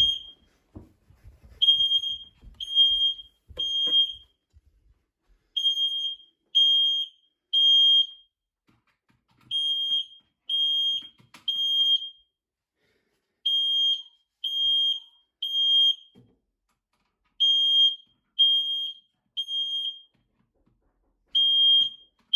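Smoke alarm sounding in a test, set off with aerosol deodorant spray: a high-pitched beep in groups of three, each group followed by a short pause and repeating about every four seconds, the standard evacuation pattern.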